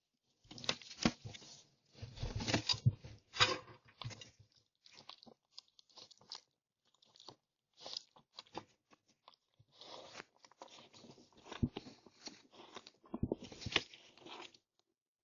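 Red fox chewing and crunching food right at the microphone: irregular crunches in two busy spells, with sparser ticks between them.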